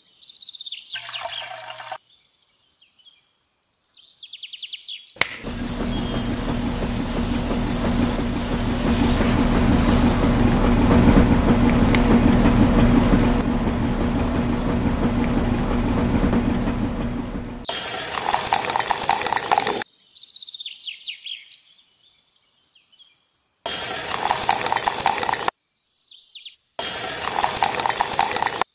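Faint bird chirps, then a small motor runs steadily with a constant hum for about twelve seconds. Three loud bursts of noise follow, each about two seconds long, starting and stopping abruptly.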